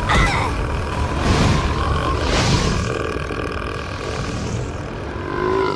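A very long, loud cartoon burp from a female character, one continuous belch lasting about five seconds.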